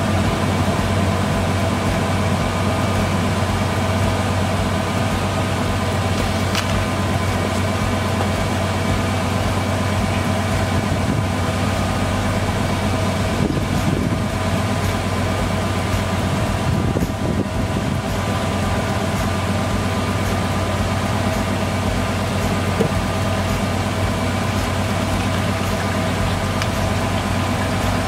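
Lexus LX470's 4.7-litre V8 idling steadily while the transmission pumps old fluid out through a disconnected cooler line during a fluid exchange.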